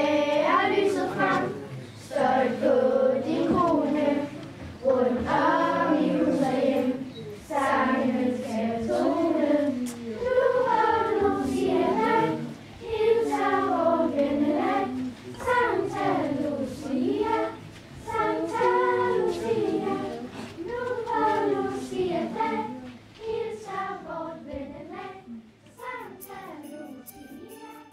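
A choir of girls singing unaccompanied in sung phrases with short breaks for breath; the singing fades in the last few seconds.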